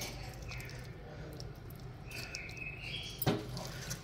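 A serving spoon clinks once against a rice platter about three seconds in. Under it runs a steady low hum and a few faint high chirps.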